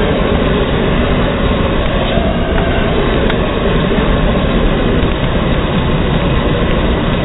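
Propane torch burning at full flame, a loud, steady, unbroken rushing noise, with one faint crack about three seconds in.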